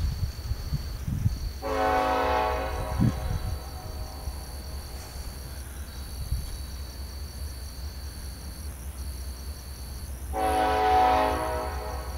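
Freight locomotive air horn sounding two long blasts about eight seconds apart, over a steady high trill of crickets.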